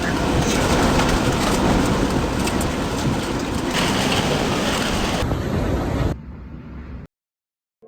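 Hurricane wind rushing and buffeting the microphone, a loud even roar. It drops to a low rumble about six seconds in and cuts off abruptly about a second later.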